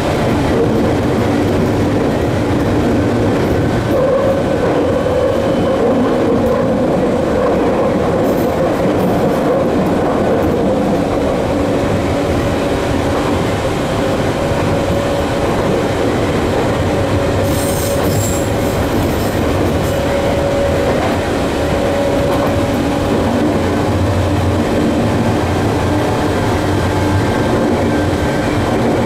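Tokyu 8500 series electric train running at speed, heard from inside the driver's cab: a steady traction motor whine over strong wind noise and rolling wheel noise. About two-thirds through, the wheels squeal briefly and high-pitched.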